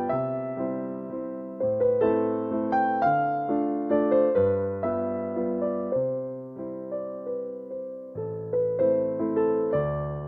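Background piano music: a slow melody of struck notes over sustained chords, each note fading after it is played.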